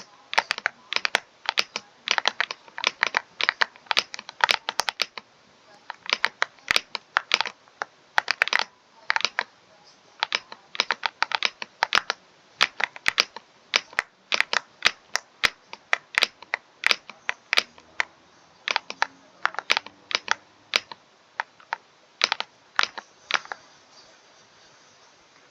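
Computer keyboard being typed on: quick, uneven keystroke clicks, several a second, broken by short pauses and stopping near the end.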